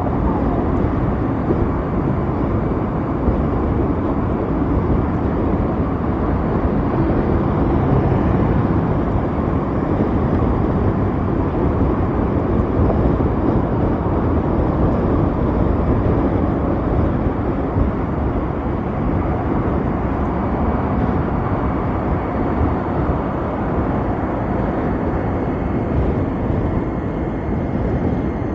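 Steady wind rush and road noise from riding an Ather 450X electric scooter at speed, the wind buffeting the microphone.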